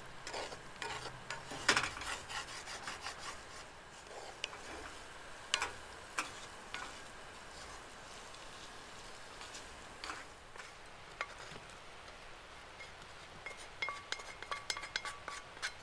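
A wooden spatula stirring and scraping scrambled eggs in a frying pan, with scattered clicks and scrapes over a faint sizzle. Near the end the eggs are scraped out of the pan onto a plate.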